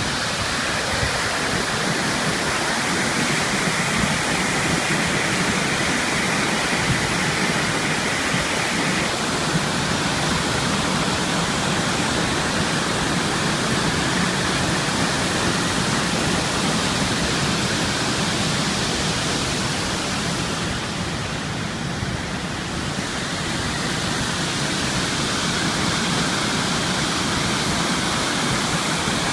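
River waterfall, water pouring and rushing steadily.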